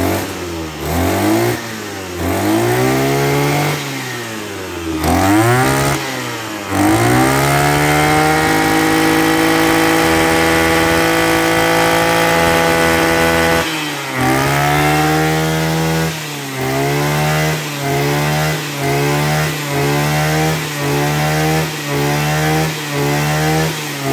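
Maruyama BIGM BP2520M brush cutter's small 25.2 cc two-stroke engine revving: a few throttle blips, then held at full throttle for about six seconds, then blipped rapidly, about three blips every two seconds.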